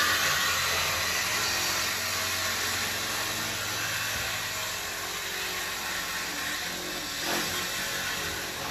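Cordless power tool cutting through the Camaro SS's steel exhaust pipe to remove the catalytic converters, a steady hissing cutting noise with a motor hum beneath it that stops near the end.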